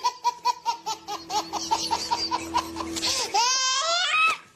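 High-pitched laughter in rapid bursts, about five a second, then a longer high-pitched cry that rises and falls about three seconds in.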